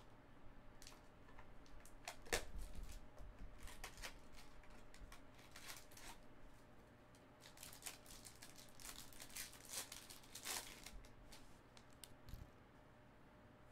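Foil wrapper of a Topps Museum Collection baseball card pack being torn open and crinkled by hand: a series of short, crisp rips and crackles, busiest near the end.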